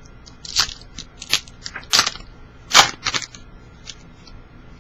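Foil wrapper of a trading-card pack crinkling and tearing as it is opened: about five short, crisp crackles spread over a few seconds.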